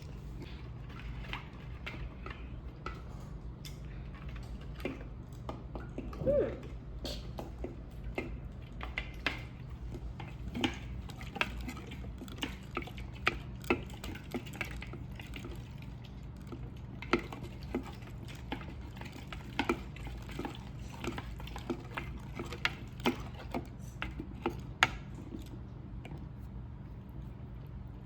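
Slime being stirred and squished in a container, with many small irregular clicks and taps throughout.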